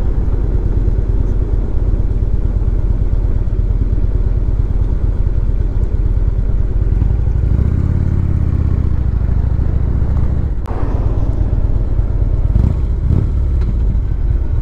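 Harley-Davidson V-twin touring motorcycle under way on a winding road: steady engine note with rushing wind. The engine note swells for a couple of seconds around the middle, then dips briefly about two-thirds of the way through before picking back up.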